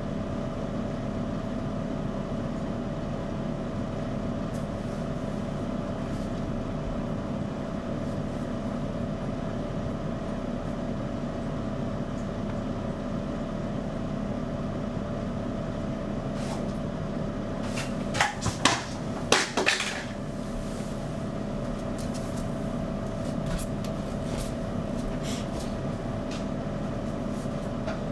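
Hair dryer running steadily, a continuous blowing noise with a constant motor hum. A short cluster of sharp knocks and clatters comes about two-thirds of the way through.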